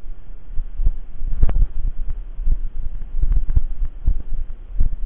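Footsteps and handling noise picked up by a body-worn camera while walking: dull low thumps, roughly two a second, over a steady low rumble.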